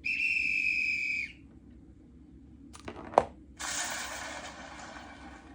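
A steady, high whistle blast about a second long. About three seconds in comes a single sharp knock, then a burst of wide, hissing noise that slowly fades.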